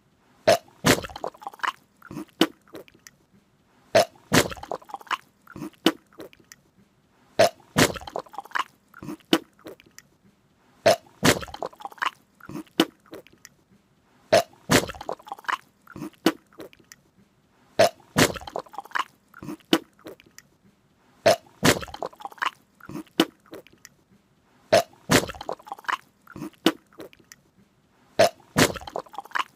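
A person snoring loudly, about one snore every three and a half seconds, each snore a rough burst broken into rapid clicks and followed by a few smaller ones.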